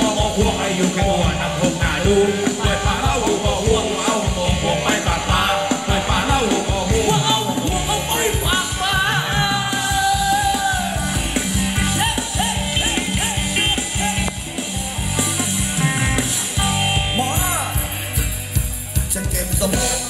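Band playing Thai ramwong dance music, a singer over a steady beat.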